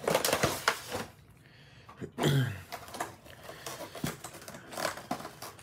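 Plastic and cardboard packaging of a Pokémon card collection box being handled and pulled apart: irregular crinkling, crackling and tapping. About two seconds in, a short low grunt that falls in pitch.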